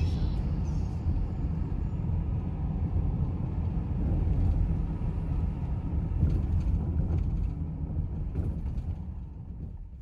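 Car driving along a road, heard from inside the cabin: a steady low rumble of engine and tyre noise that fades out near the end.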